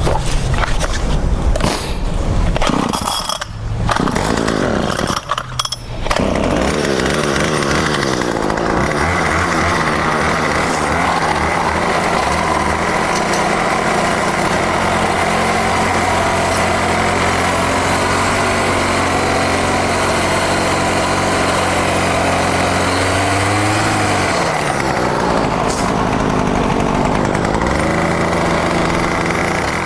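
Small gas engine of a lawn edger being cranked up: it catches and cuts out a couple of times in the first few seconds, then runs steadily while edging, with a brief dip in engine speed about three-quarters of the way through.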